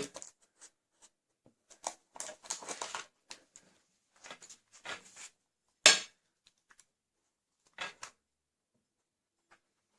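A pit bull moving about to make its choice: scattered light clicks, taps and scuffs, with one sharp click about six seconds in.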